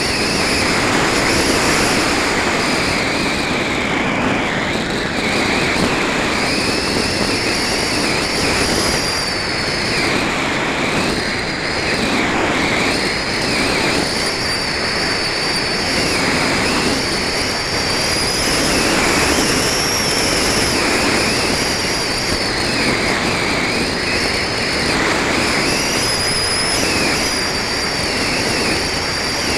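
Steady rush of airflow over the camera mounted on a Multiplex Heron RC glider in flight, with a high thin whistle that slowly rises and falls in pitch.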